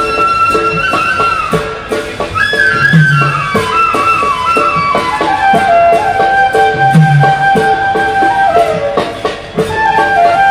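Traditional Indian dance music: a melody of long held notes that slide from one pitch to the next, over steady percussion strokes, with a deeper drum beat about every four seconds.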